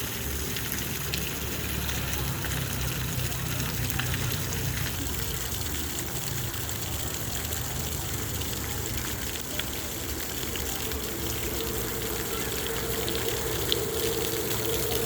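Water from a small artificial fountain splashing and trickling steadily. A low steady hum runs underneath, and a higher steady tone joins about eleven seconds in.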